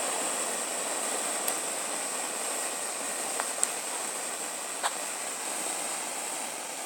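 Pull-string smoke grenade firework burning with a steady, rocket-like hiss, slowly fading, with a few faint sharp clicks.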